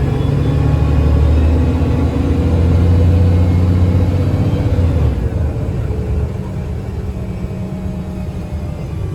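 Engine and Voith automatic transmission of a 2009 Gillig BRT 40' transit bus pulling away under load, heard from inside the bus: a deep rumble that builds, then drops off about five seconds in as the bus eases off or shifts.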